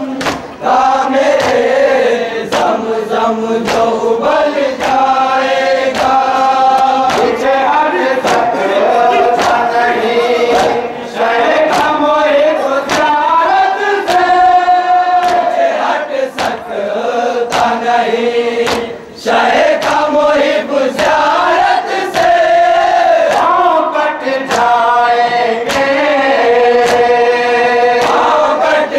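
A group of men chanting a Shia noha (lament) in unison, sung with a long-held melody, over a steady beat of sharp slaps from matam, hands striking chests in mourning.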